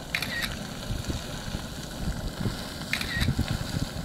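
Beehive Geyser erupting: a steady rushing hiss of its water column and spray, with wind buffeting the microphone. Two brief high chirps come about three seconds apart.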